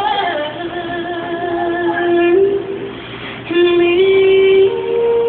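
A woman's voice singing long held notes that step up in pitch, with a short break about three seconds in.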